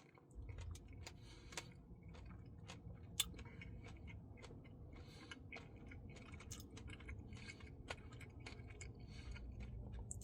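Faint eating sounds from someone eating a Blizzard: scattered small clicks and taps, a few a second, over a low hum.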